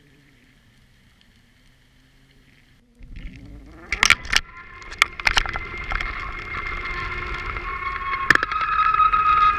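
Muffled underwater sound through a GoPro's waterproof housing hanging on a weighted fishing line. Quiet at first, then a sudden rise about three seconds in: several sharp knocks on the housing, and a steady high whine that grows louder and rises slightly in pitch.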